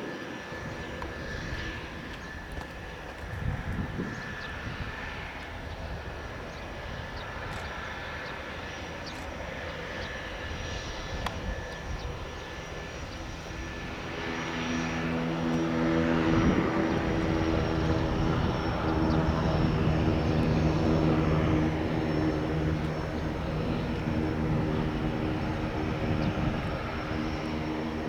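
Pilatus PC-6 Turbo-Porter's PT6A turboprop engine and propeller running, with a steady high turbine whine. About halfway through, the propeller's buzzing tones swell and get clearly louder as the aircraft comes closer.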